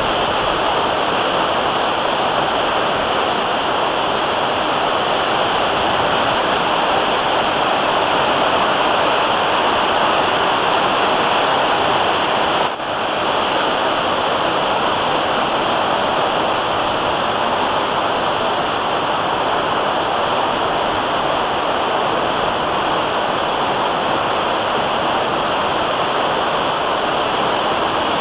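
Churning wake of the Norwegian Pearl cruise ship, heard from her stern: a steady rush of water, with one brief drop in level about halfway through.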